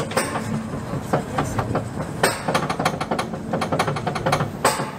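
Mine-train roller coaster climbing its lift hill, the lift mechanism and anti-rollback clacking in a rapid, uneven run of sharp clicks over the rumble of the cars.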